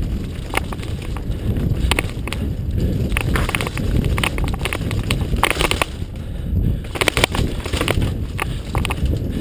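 Mountain bike riding over a rough dirt and rock trail: tyres rumbling on the ground, with irregular clicks and rattles from the bike as it hits bumps, and wind on the microphone.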